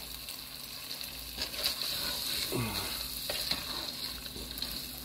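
Ground beef and chili mixture sizzling steadily in a pot on the stove while a slotted spatula stirs it, scraping now and then against the pot.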